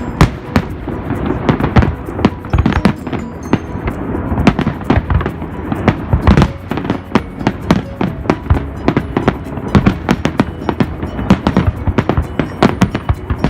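Fireworks display: a dense, unbroken barrage of bangs from shells bursting, several a second.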